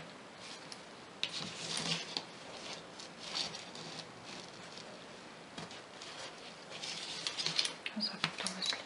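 Hands handling a satin-ribbon embroidery in its frame: rustling of ribbon and fabric with scattered light clicks and knocks, busier near the end.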